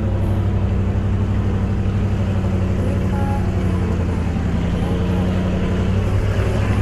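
Engine and road noise of a moving off-road car: a steady low drone that holds level throughout, with faint voices in the background.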